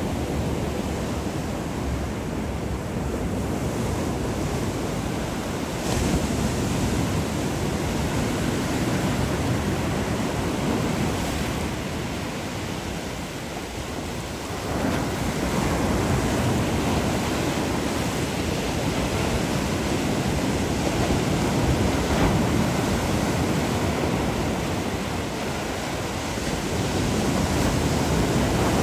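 Sea waves breaking and washing up the beach, the surf rushing and swelling, with a quieter lull about halfway through before it builds again.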